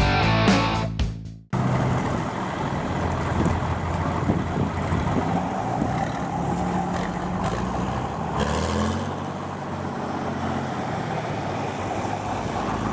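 Rock music with electric guitar cuts off abruptly about a second and a half in. Then a GMC diesel pickup pulling truck idles with a steady rumble, its pitch shifting briefly about eight seconds in.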